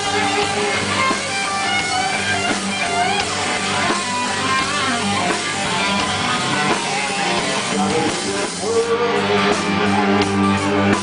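Rock band playing an instrumental passage with guitar over bass and drums. The guitar's notes bend up and down, and the drums hit harder near the end.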